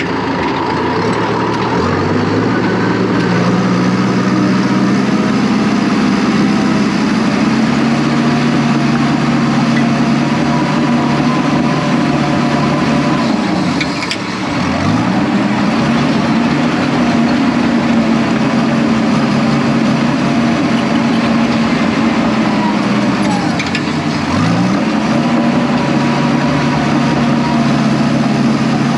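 Case 750H crawler dozer's diesel engine running hard while pushing dirt. Twice, about halfway through and again near the end, its pitch sags briefly under load and then climbs back.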